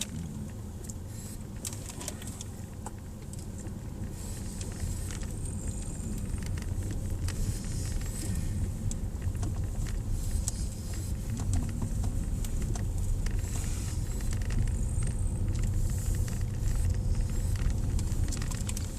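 Strong wind rumbling and buffeting on the microphone over a vehicle's running engine, growing louder after a few seconds, with scattered light clicks and rattles.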